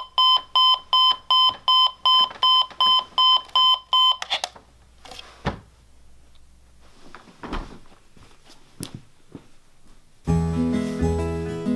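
Digital alarm clock beeping rapidly, about three beeps a second, cut off about four seconds in. Faint rustling and a soft thump follow, and acoustic guitar music starts near the end.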